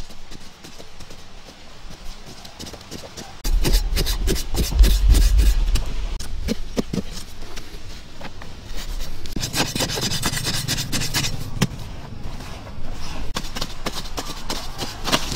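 Digging sticks and a curved metal blade stabbing and scraping into dry, compacted earth: a string of short knocks and scrapes, heavier and lower for a couple of seconds a few seconds in, with a longer rasping scrape about ten seconds in.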